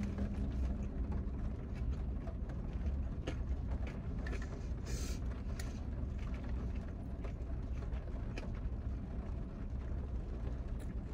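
A person quietly chewing a fried chicken tender, with faint mouth clicks, over a steady low rumble in a car's cabin.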